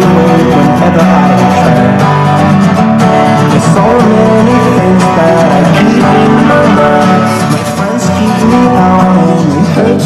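Music track playing loud and continuous through a Samsung HW-A670 soundbar, with layered sustained notes and no speech.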